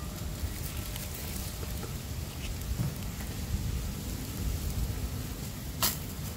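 Chopped onions sizzling in hot oil as they are sautéed, a steady frying hiss with faint crackles. A single sharp click or knock sounds near the end.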